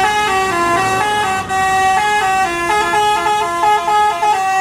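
Tour bus's multi-tone 'telolet' horn of the Basuri type, playing a quick tune of short stepped notes, with the notes coming faster in the second half.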